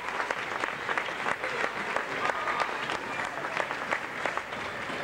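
Crowd of spectators clapping: a dense, steady patter of many hands, with a few faint voices mixed in.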